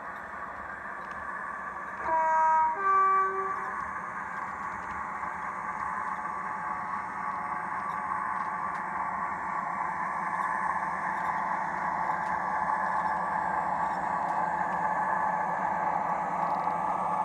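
Sound-fitted model diesel locomotive sounding a two-tone horn, a lower note then a higher one, about two seconds in. The engine sound runs steadily underneath and slowly grows louder as the locomotive works up.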